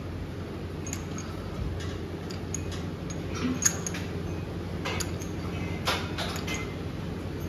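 Scattered light metallic clinks and clicks, typical of dumbbells and weight plates being handled in a gym, over a steady low hum.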